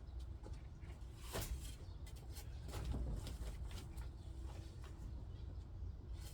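Scattered knocks and scrapes of hand tools working garden soil, over a steady low rumble.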